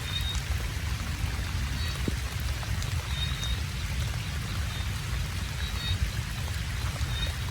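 Steady rain falling, with a low rumble underneath and a few faint, short high chirps.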